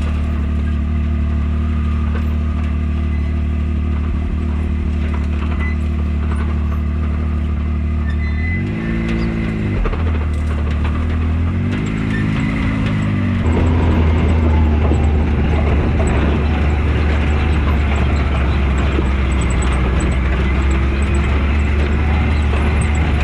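Can-Am Maverick X3 RC side-by-side's turbocharged three-cylinder engine running steadily, with two brief rises and falls in revs about nine and twelve seconds in. From about thirteen seconds in it runs louder and rougher.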